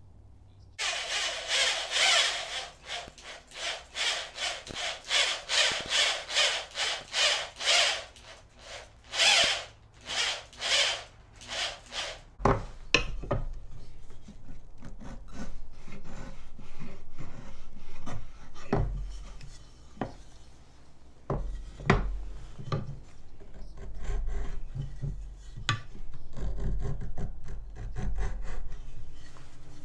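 Hand saw cutting wood in quick back-and-forth strokes, about two a second, slowing and stopping about twelve seconds in. After that comes quieter rubbing and scraping of wood, with a few sharp knocks.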